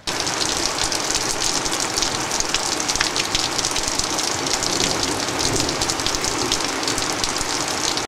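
Steady rain falling on leaves and a wooden deck railing, a dense, even patter of drops.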